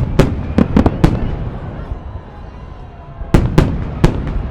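Aerial firework shells of a festive salute bursting with sharp bangs, four in quick succession in the first second, then after a pause another cluster of three or four, over a low rumble.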